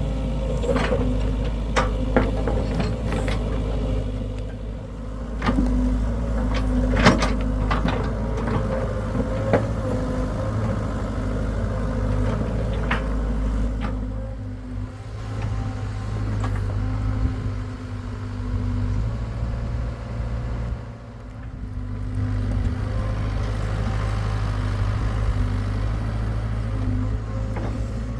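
Hitachi excavator's diesel engine running steadily, with a series of sharp knocks over the first ten seconds, the loudest about seven seconds in.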